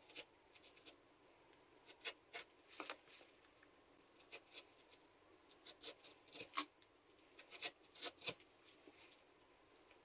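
Faint, short scraping cuts of a carving V-tool being pushed along lines in a small limewood blank, about a dozen irregular strokes with small clicks as the edge bites and lifts out.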